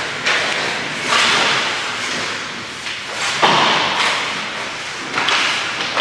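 Hockey skate blades scraping and carving across the ice in several hissing sweeps a second or two apart, with knocks and thuds of sticks and puck against the boards.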